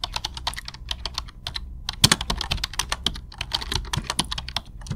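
Rapid, irregular key clicks of typing on a computer keyboard, over a low steady hum.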